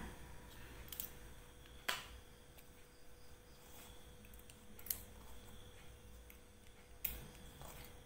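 Faint handling clicks as a bag strap is fitted to a crochet bag: about four short, separate clicks a few seconds apart.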